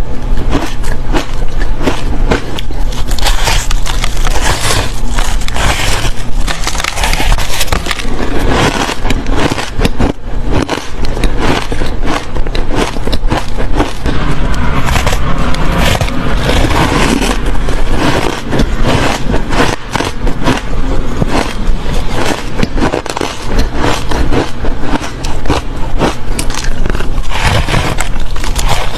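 Close-miked biting and chewing of fluffy ice: a dense, continuous run of squeaky, crackling crunches.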